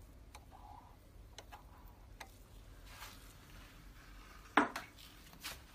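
Faint handling noise at a large-format printer: light clicks and taps of hard parts, with one sharper click about four and a half seconds in.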